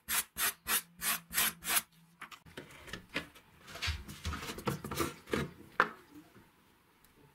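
A flat-blade screwdriver scraping rust off a rusty steel sword blade in quick, even strokes, about four a second, for the first two seconds. Then softer handling noises and a few knocks, with one sharp click near six seconds in.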